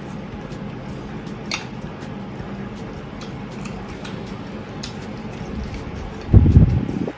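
Close-miked eating: chewing noodles, with a few sharp clicks of cutlery, and a loud low thump about a second before the end.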